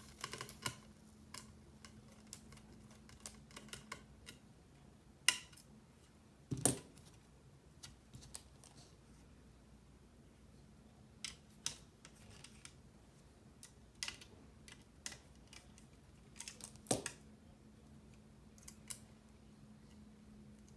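Irregular clicks and taps of small plastic and metal keyboard parts being handled while a 40% mechanical keyboard is assembled, with a few louder knocks. A faint steady hum lies underneath.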